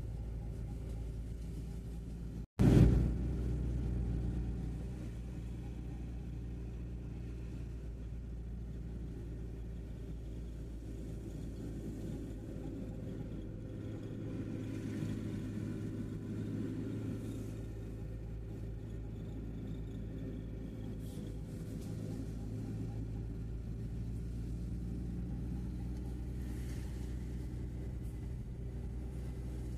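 Steady low rumble of a vehicle's engine and tyres on the road, heard from inside the cab. About two and a half seconds in, the sound cuts out for an instant, then comes back with a loud thump that dies away over a second or so.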